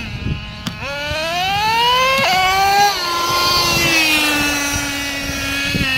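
Traxxas Revo 3.3 nitro monster truck's small two-stroke nitro engine revving hard, its whine climbing in pitch for about two seconds. About three seconds in the pitch drops abruptly, then holds and sinks slowly as the truck runs close past.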